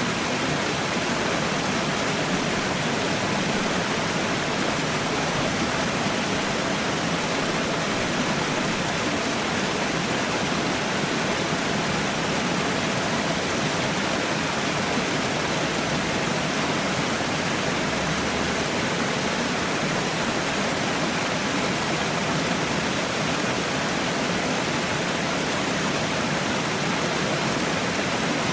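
Water falling and splashing in a steady, even rush, like a small waterfall.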